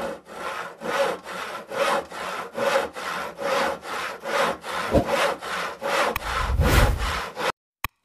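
A small serrated saw blade sawing a thin tree branch in quick, even back-and-forth strokes, stopping abruptly near the end.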